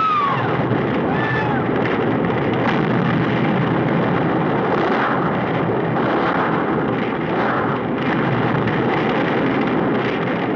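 Loud, dense continuous roar with a few shrill gliding cries at the start; it cuts off suddenly near the end.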